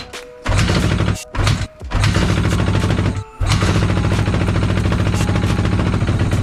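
A Honda dirt bike being kick-started. The engine catches in short sputtering bursts, then runs with rapid popping firing. It falters briefly about three seconds in, then keeps running.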